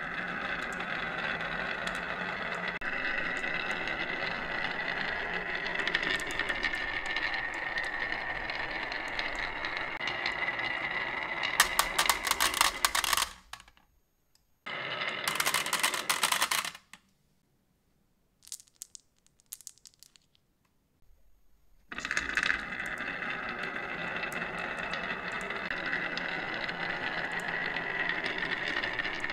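Many marbles rolling down the grooves of a carved wooden zigzag marble-run slope, a steady dense rolling clatter. About twelve seconds in the marbles clatter louder, then after a short break a brief burst, a few seconds of near silence with a few faint clicks, and the steady rolling starts again.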